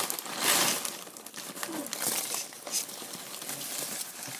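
Newspaper and foam packing crinkling and rustling in irregular handfuls as a shipped potted orchid is unwrapped by hand, loudest about half a second in.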